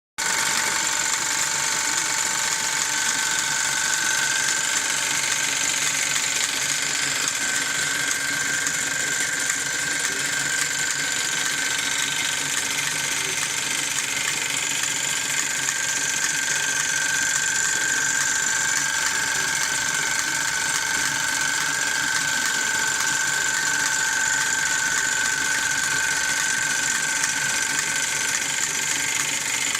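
Wilesco D24 toy steam engine running steadily and driving a Wilesco model workshop through its belts and line shafting. It makes a continuous whirring mechanical clatter with steady high-pitched whining tones.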